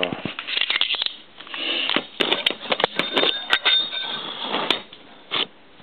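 Spanner turning a nut on an M16 threaded rod used as a press to pull a repair bushing into a bore: repeated clinks and scrapes of steel on steel as the nut is worked under load.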